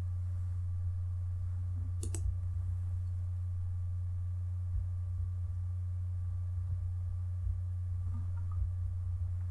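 Steady low electrical hum, with a single sharp click about two seconds in and a few faint ticks near the end.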